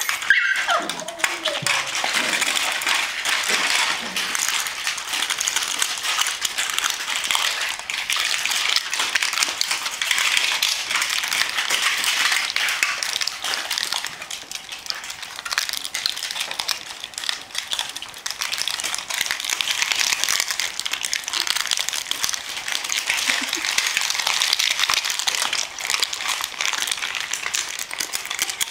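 Barbet puppies play-fighting, their growls and yips over a constant crackling and rustling of a paper-and-plastic muffin package being chewed and torn apart.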